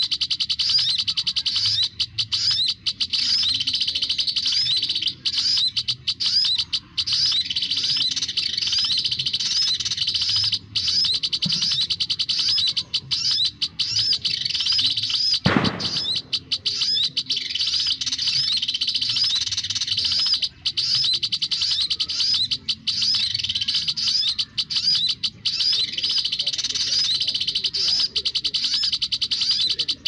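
Olive-backed sunbird lure call played through a loudspeaker: rapid, high chirping that repeats without a break. One thump about halfway through.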